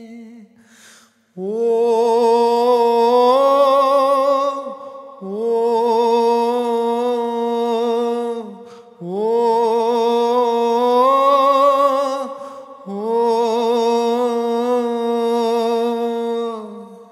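Wordless vocal line: one singer humming in four long, held phrases with vibrato, each climbing gently in pitch and then settling, with a short breath between them.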